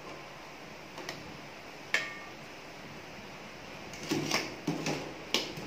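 Wire skimmer clinking against a metal pot and colander as boiled pempek are lifted out of the water: scattered clinks, one with a short metallic ring about two seconds in, and a cluster of knocks near the end.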